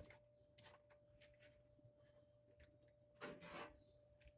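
Near silence: a steady faint hum with a few light handling clicks and one brief scraping rub about three seconds in.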